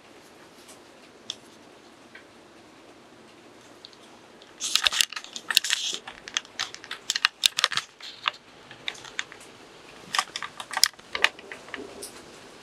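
Camera handling noise: a dense run of sharp clicks, taps and rustles as the camera is picked up and moved, starting suddenly about four and a half seconds in and flaring again near the end, over a faint steady hiss.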